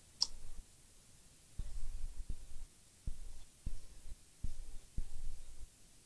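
Irregular small clicks and dull knocks of hand tools working on a circuit board at a repair bench, with one sharp click about a quarter second in.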